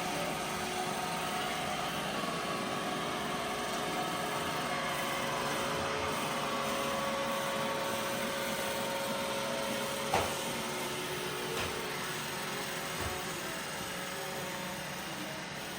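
iRobot Roomba robot vacuum running steadily while cleaning, a whirring motor hum with a few light knocks, the clearest about ten seconds in.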